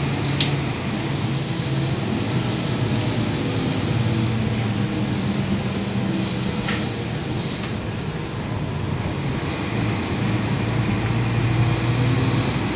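Ride inside a Mercedes-Benz OC500LE city bus on the move. The diesel engine and drivetrain run under steady road and tyre noise, with the engine note rising and falling as the bus changes speed. A couple of short rattles or clicks from the cabin are heard, one near the start and one about halfway through.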